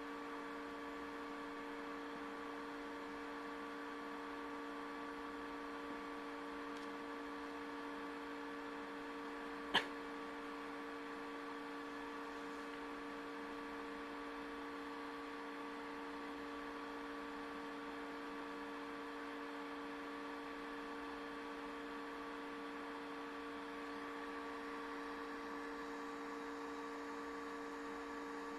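Steady electrical hum made of several constant tones, with one sharp click about ten seconds in.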